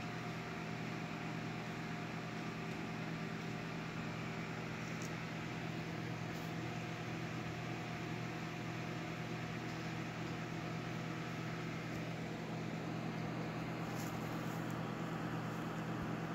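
A steady low mechanical hum, like room or appliance noise, runs throughout. A few faint crisp clicks are scattered through it, from a small leopard tortoise biting and tearing a romaine lettuce leaf.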